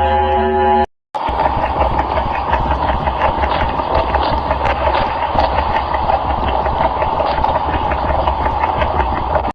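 Sonified space recording: a droning tone with stacked harmonics cuts off about a second in. After a brief silence comes a steady, rough rumbling hiss peppered with crackles, which stops just before the end.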